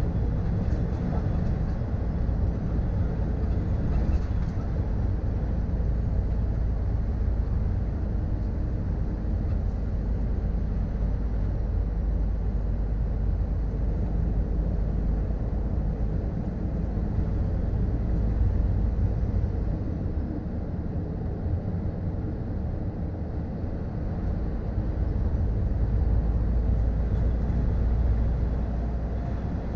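Cab interior of a 2013 Scania R440 truck on the move: its six-cylinder diesel engine and the road noise make a steady low drone, which eases slightly about twenty seconds in and builds again a few seconds later.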